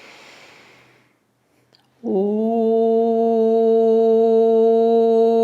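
An audible breath in, then about two seconds in a single voice starts chanting Om, one long tone held at a steady pitch.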